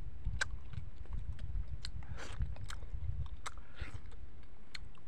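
Biting and wet chewing of ripe mango flesh: irregular smacking clicks with a couple of longer slurping sounds, over a low steady rumble.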